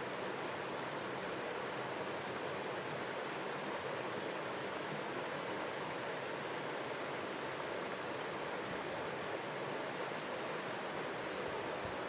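Stream water running steadily, an even rushing sound with no breaks.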